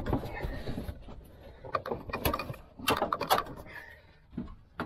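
Irregular clicks, knocks and rattles of plastic trim and a battery vent duct being tugged and shifted by hand inside a car. The sounds come in bunches, busiest around two and three seconds in, then ease off.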